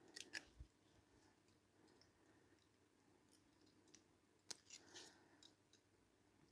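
Faint small clicks of brass clock-movement parts and steel tweezers knocking together as a lever is fitted between the plates of an Ansonia kitchen clock movement. There are a couple of clicks just after the start, then a sharper one about four and a half seconds in, followed by a few lighter ones.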